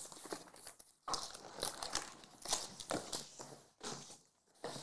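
Cardboard trading-card boxes and the packs inside being handled, with short irregular rustles and scrapes of card and paper.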